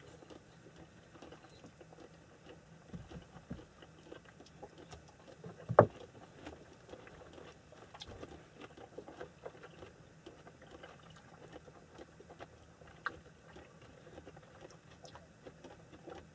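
Faint scattered clicks and rustles of people eating at a table, with one sharp knock about six seconds in and a smaller one about thirteen seconds in.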